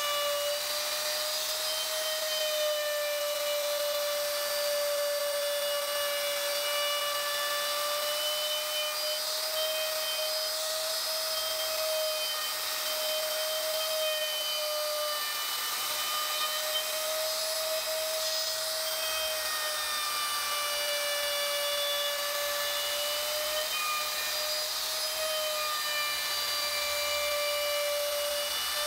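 Electric wood router running at high speed with a small carving bit cutting into wood: a steady high motor whine that wavers slightly in pitch and dips briefly now and then as the bit is guided through the cut.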